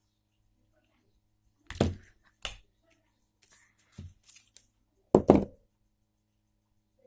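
Pliers squeezing a small metal lug shut on a Bluetooth earphone's wire: a few separate sharp clicks and knocks, the loudest a close pair about five seconds in.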